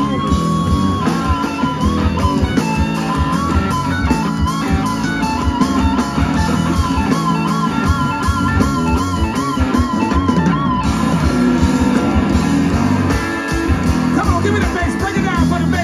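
Live blues-rock band playing loudly: a pedal steel guitar carries the lead with long held notes that waver and slide, over electric guitar, bass and drums.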